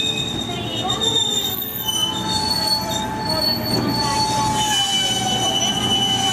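Electric multiple-unit train braking as it pulls into a station, its brakes and wheels squealing in several long, steady high tones over the low rumble of the cars.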